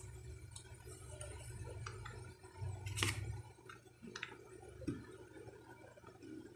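Small clicks and taps of a screwdriver and hands working on a Daisy Powerline 1200 CO2 BB pistol while it is taken apart, the sharpest click about three seconds in. A low rumble of handling noise runs under the first half.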